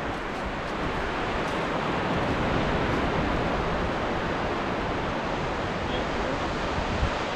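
Indian Ocean surf washing onto the shore, a steady hiss of breaking waves that swells a little a couple of seconds in. A short thump near the end.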